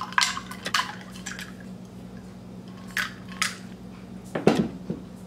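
Ice cubes and glassware clinking as iced agua fresca is poured from a glass pitcher into a glass: a few light separate clicks, then a louder cluster of knocks about four and a half seconds in.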